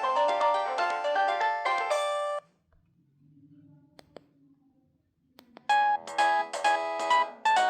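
Huawei U1000S mobile phone playing its built-in ringtones through its speaker: one polyphonic melody of quick electronic notes stops about two and a half seconds in, followed by a faint click, and a different ringtone melody starts near the end.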